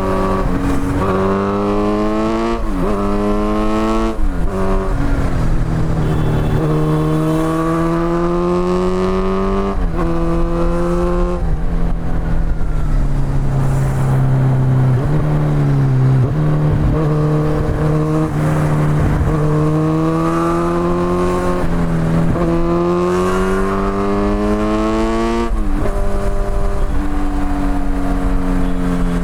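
Kawasaki Z900's inline-four engine through an Akrapovic exhaust, accelerating through the gears: the pitch climbs and drops sharply at each upshift, several times over. In the middle it eases off to a lower, steadier note before pulling up through the gears again.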